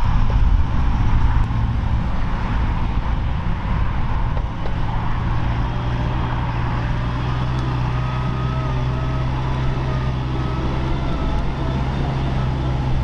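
Diesel engines of a mini excavator and a Thwaites 6-tonne site dumper running, a steady low drone.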